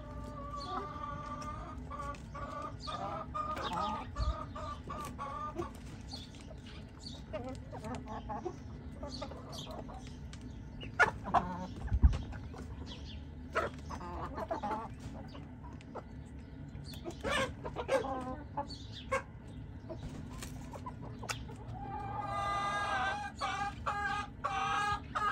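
Several chickens clucking as they peck food off the ground. Drawn-out calls come over the first few seconds and again near the end, with scattered sharp taps in between.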